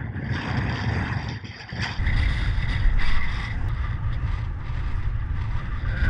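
Wind buffeting the microphone with an unsteady low rumble that eases for a moment and then picks up again about two seconds in.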